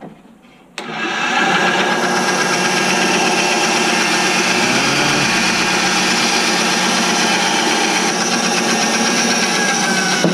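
Benchtop bandsaw switched on about a second in, then running steadily while a length of PVC pipe is fed through the blade.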